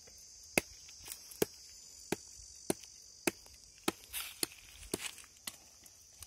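A knife chopping into a green palmyra palm stalk in quick, sharp strokes, about two a second.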